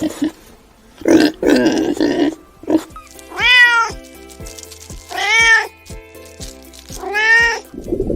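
A cat meowing three times, about two seconds apart, each call rising and then falling in pitch, over background music with a steady beat. Before the meows come a few short, rough, noisy sounds.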